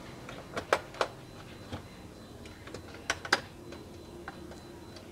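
Scattered sharp clicks and taps of a screwdriver and small screws against the metal hard-disk bracket as an SSD is screwed into a laptop, the loudest coming in pairs about a second in and about three seconds in.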